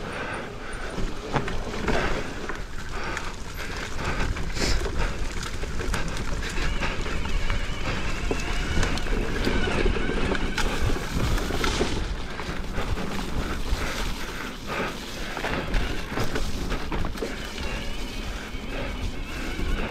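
Cannondale Moterra LT2 mountain bike descending a rough, wet trail: wind rumbling on the microphone over the tyres and the rattles and knocks of the bike over the ground.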